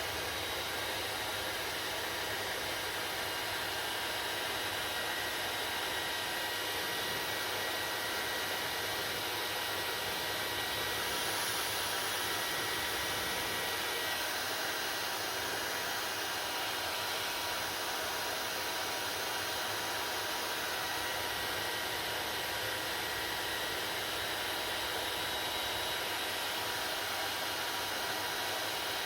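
Hair dryer running steadily: a constant rush of blown air with a faint steady motor whine.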